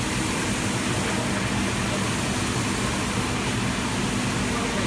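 Return flow of wash solution from the spray zone of a tunnel wash cleaning machine pouring and splashing into its stainless-steel tank: a steady rush of water, with a steady low hum from the running machine beneath.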